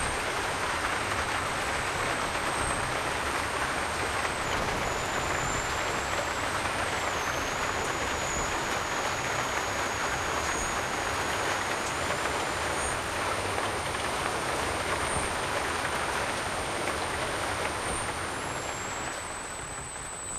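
Steady, even rushing noise, like rain or dense traffic, with a faint thin high tone that shifts pitch a few times. The noise eases slightly near the end.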